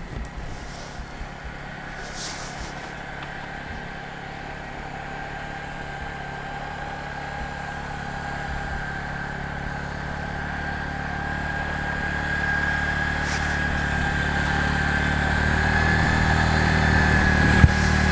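Arctic Cat ATV engine running at a steady pitch while plowing snow, growing gradually louder as it draws closer.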